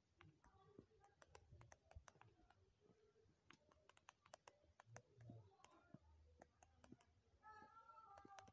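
Faint, irregular clicks of typing on a smartphone's on-screen keyboard, several a second.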